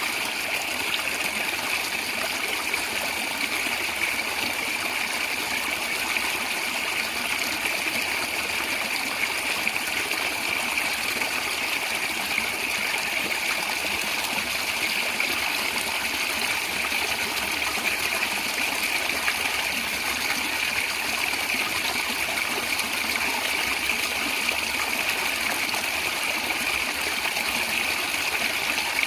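Small stream of water flowing and gurgling steadily over stones, an even rushing noise with no breaks.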